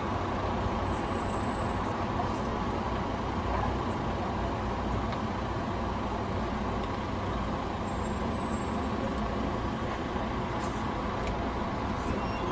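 Steady road and engine noise of a moving car, heard from inside the car.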